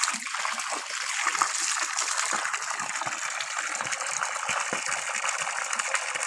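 Steady gush of water pouring from a PVC outlet pipe and splashing onto wet, muddy ground, lifted by a 0.5 HP submersible pump from a newly drilled borehole that is being flushed of sand and silt.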